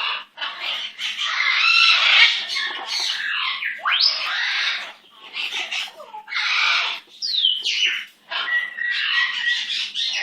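Pet parrot making a run of squawks and chattering calls, with a quick rising whistle about four seconds in, a falling one after seven seconds, and a short held whistled note near the end.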